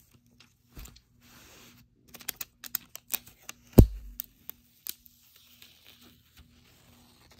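Clear protective plastic film being peeled off the sides of an Apple TV 4K, crackling and ticking in a quick irregular run. One louder knock about four seconds in.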